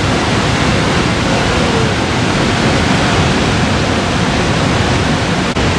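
Niagara Falls: a loud, steady rush of falling water, an even roar without rhythm or tone.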